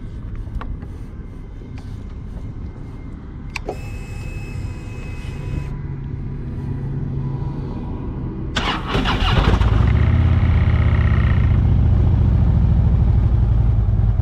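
Harley-Davidson V-twin motorcycle engine being started: a click and low rumble, then it fires up about eight and a half seconds in and settles into a loud, steady run.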